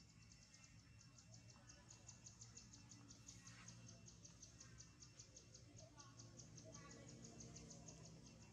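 Near silence, with faint high insect chirping pulsing steadily at about five pulses a second.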